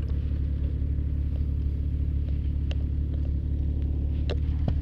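Jeep engine running steadily, heard from aboard the moving vehicle, with a few brief sharp clicks over it.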